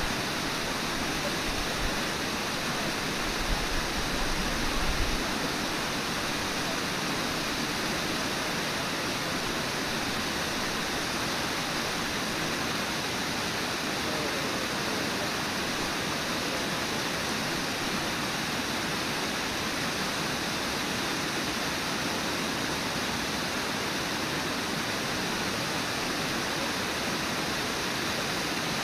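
Steady rush of the Brooks Falls waterfall and the white-water rapids below it. A few brief low thumps come about three to five seconds in.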